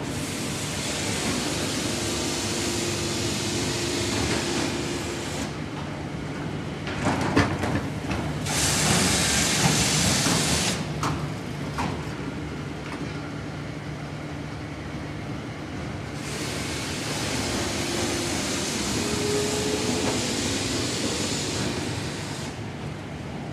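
Factory machinery of a melamine paper impregnation line running: a steady low motor hum under a loud hissing noise that swells and fades three times, loudest about nine seconds in. A few sharp clicks sound about seven and eleven seconds in.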